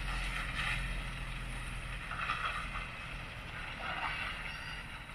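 Heavy road-train truck's diesel engine running with a low, steady hum that fades gradually, mixed with irregular hissing and rattling noise.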